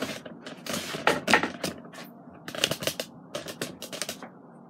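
Handling noise: a string of irregular clicks, knocks and rustles as the camera is picked up and moved, stopping near the end.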